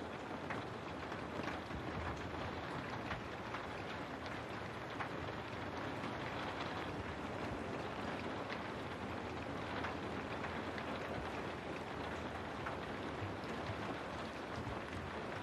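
Steady rain, an even hiss with scattered sharper drop ticks through it.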